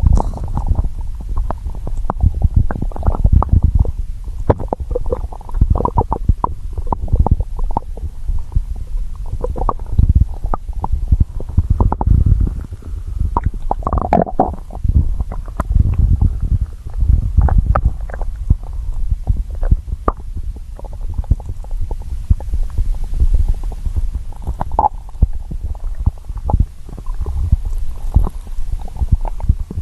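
A hungry person's stomach growling: a continuous low rumble broken by many quick, irregular gurgles and bubbling pops.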